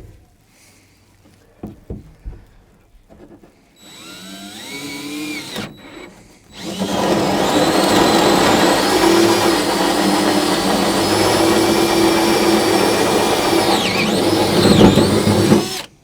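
Power drill with a hole saw cutting a hole through a truck bed floor. A short rising whine as it spins up, then about nine seconds of loud steady cutting. The pitch sags briefly under load near the end, and then it stops.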